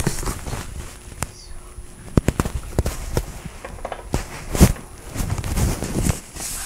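Knocks, clicks and rustling from a handheld phone being carried and handled while someone walks, with a louder thump about four and a half seconds in.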